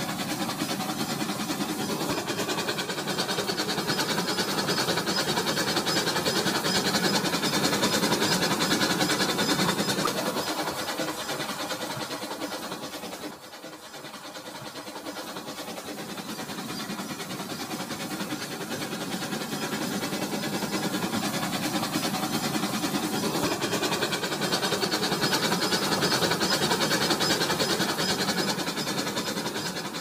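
Remote-control toy train running along plastic track. It grows louder as it comes toward the microphone and fades as it goes by, twice, with a sudden brief drop about halfway through.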